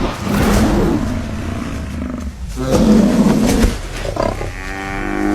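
Lions growling and snarling during an attack on a Cape buffalo bull, in rough bouts. A long, drawn-out call with a clear pitch comes near the end.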